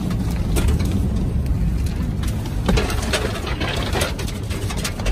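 Fire truck running, heard from inside its cab as a steady low rumble, with scattered sharp clicks and knocks throughout.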